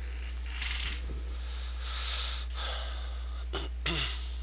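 A man breathing audibly close to the microphone: a few noisy exhales through the nose, then near the end a short low vocal sound that falls in pitch. A steady low electrical hum runs underneath.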